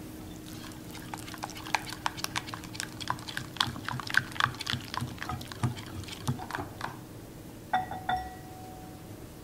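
Hand whisk working a wet batter in a mixing bowl, clicking and scraping against the sides several times a second, then two sharp taps with a brief ringing tone near the end.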